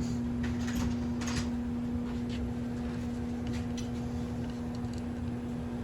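A steady low hum runs throughout. Over it come a few light clicks and scrapes of a screwdriver prying at the gas cap's plastic top to separate it from the metal body.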